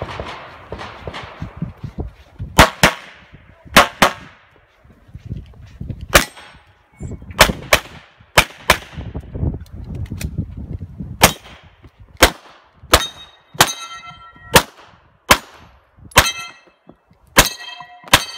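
Pistol shots fired during a practical shooting stage, mostly in quick pairs with pauses between positions, about twenty shots in all. In the second half, several hits are followed by the ringing of steel targets.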